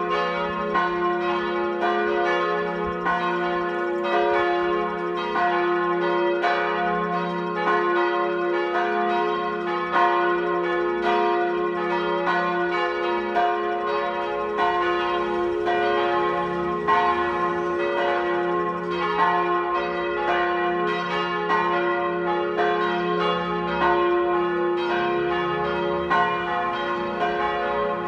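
A full peal of church bells: all the tower's bells ringing together, their strokes overlapping in a continuous, dense jangle with a low hum underneath. It is the bells' call to High Mass.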